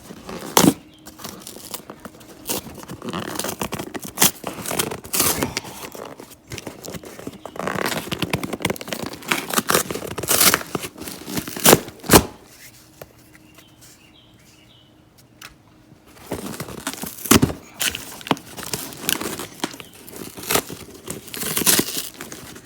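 Cardboard shipping box being torn open by hand: irregular ripping of cardboard and tape with sharp knocks and crinkles, easing off for a few seconds past the middle before the tearing starts again.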